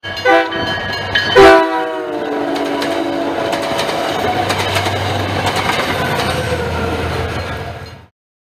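Commuter train passing at speed: a short horn blast, then a longer one that drops in pitch as the train closes in, followed by the rumble and clickety-clack of bilevel coaches rushing by. The sound cuts off suddenly near the end.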